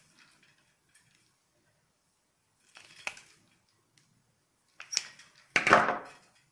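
Hand tools and wires being handled on a wooden table: a few short clicks and scrapes, with a louder knock and rustle about five and a half seconds in as the pliers are set down.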